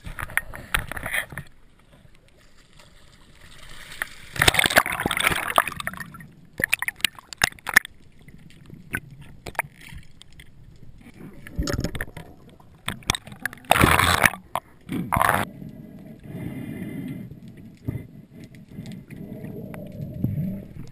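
Water splashing and gurgling around a mask-mounted camera in an underwater housing as a spearfisher enters the sea from an inflatable boat and swims underwater. The sound comes as irregular loud bursts of splashing and bubbling, the loudest about 14 seconds in, with quieter watery noise between them.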